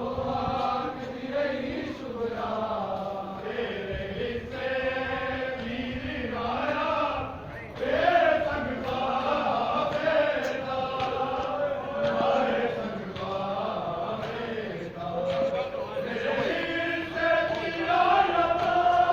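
Men's voices chanting a noha, a Shia lament for Karbala, in a slow, drawn-out melodic recitation.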